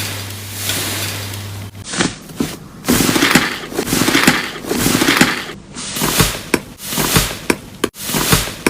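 Iceberg slime's dried crust crackling and crunching as it is pressed and squeezed, starting about two seconds in: a few dense crackling squeezes about a second apart, then sharper separate crackles.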